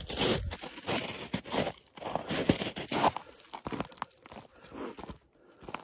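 Footsteps crunching in snow at a steady walking pace, louder in the first three seconds and fainter after that.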